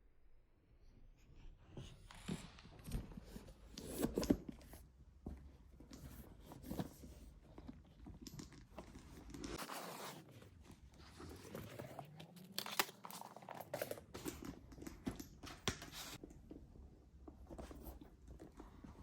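Packaging being unwrapped by hand: paper crinkling and rustling, with irregular tearing and small handling knocks. The loudest crackle comes about four seconds in.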